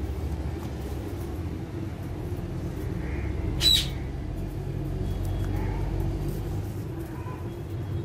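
A parakeet gives one short, sharp squawk about three and a half seconds in, over a steady low background hum.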